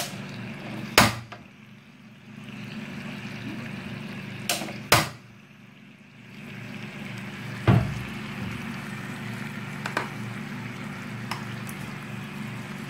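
Jaggery syrup with grated coconut bubbling and sizzling gently over a low gas flame in a non-stick pan. Sharp knocks, the loudest sounds, come about one, five and eight seconds in.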